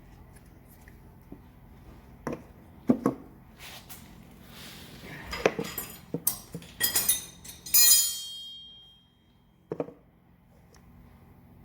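Metal parts and tools clinking and clattering on a workbench during engine teardown: scattered knocks, then a busier clatter ending in one ringing metallic strike that fades out over about a second, and a single knock near the end.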